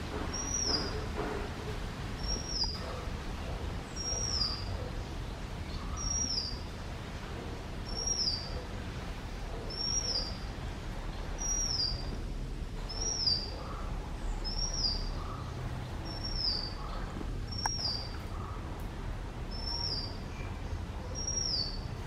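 A bird calling over and over with the same short, high note that rises then drops, repeated roughly once a second, over a low steady background rumble.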